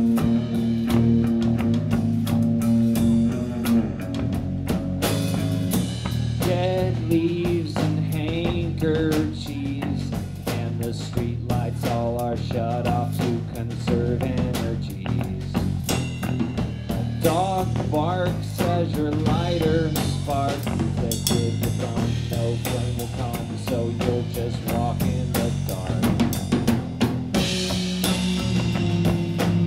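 Live rock band playing an instrumental passage with no singing: a drum kit keeping the beat on snare, kick and cymbals, under electric guitars whose notes waver and bend in pitch.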